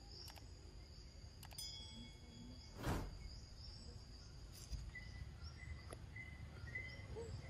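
Forest ambience: insects trilling steadily at a high pitch, with a short rush of noise about three seconds in and a few short high chirps in the second half.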